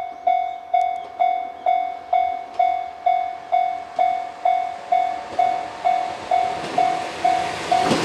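Japanese level-crossing alarm ringing steadily, about two dings a second. A two-car JR 103-series electric train approaches, and its running noise grows louder toward the end.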